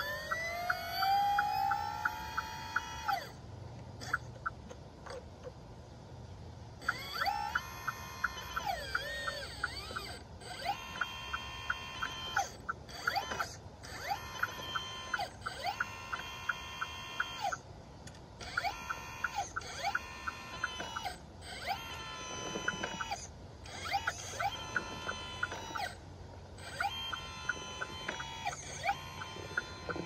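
Small electric motor of an RC articulated dump truck's hydraulic pump whining. It winds up over the first few seconds, then runs in about a dozen short bursts that rise, hold a steady pitch and drop away, with a fast regular ticking inside each burst.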